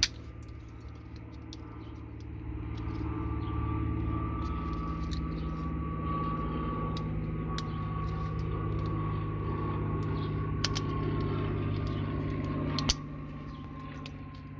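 A steady motor hum with a thin, slowly falling whine. It swells a few seconds in and cuts off with a click near the end, with a few small clicks along the way.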